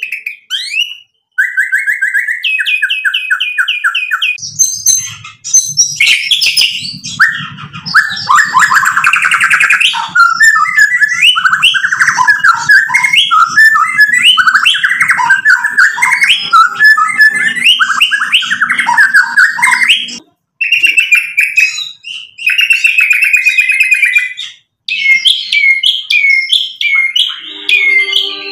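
White-rumped shama in full song, running through a long, varied string of rapid repeated whistled notes, trills and chattering phrases, its learned repertoire, broken by short pauses about a second in, near 20 seconds and near 25 seconds. A low hum runs underneath through much of the middle.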